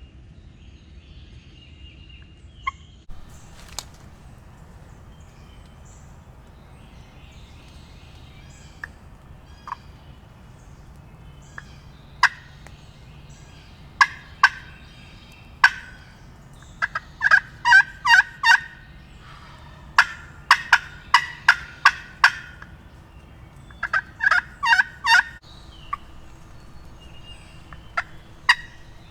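Turkey yelping: loud, sharp notes in quick runs of several at about four a second, repeated in clusters through the second half.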